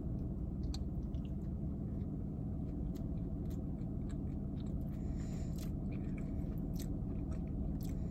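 A person chewing a mouthful of soft, chilled Oreo cookie with vanilla buttercream frosting, with scattered small mouth clicks over a steady low hum.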